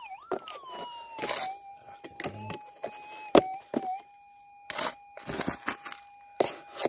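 Gold-prospecting metal detector tone gliding down and settling into a steady hum while the coil lies still on the ground. Over it come scraping and crunching of gravelly dirt being raked and moved by hand, with a sharp click a little over three seconds in.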